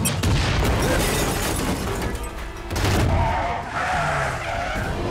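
Action-film sound mix of vehicles racing with skidding tyres over a music score, with a heavy low hit about three seconds in.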